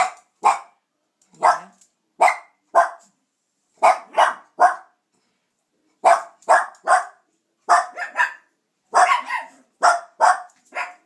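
Small dogs, Yorkshire terriers, barking: about eighteen short barks in quick runs of two or three, with brief gaps between the runs.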